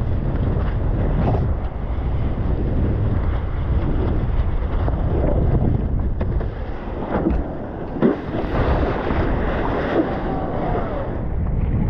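Wind buffeting the microphone with a steady low rumble, over rushing and splashing water as a wingfoil board moves across choppy sea, with a brief sharp hit about eight seconds in.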